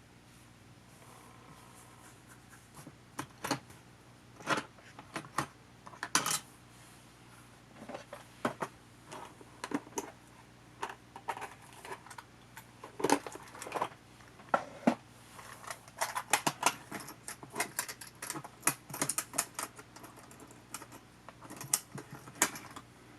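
Irregular small clicks, clinks and taps from a compact camcorder and small tools being handled on a work surface, sparse at first and busier after the first several seconds.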